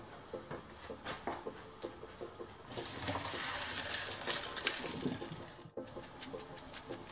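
Hot pasta water poured from a cooking pot into a plastic colander in the sink, rushing and splashing for about three seconds from near the middle. Light knocks and clinks of the pot being handled come before and after.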